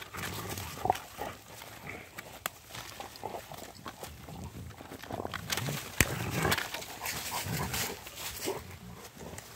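Rottweilers growling and grunting in play while they chew and tug at dry branches, with crackling brush and several sharp snaps of twigs, the loudest about six seconds in.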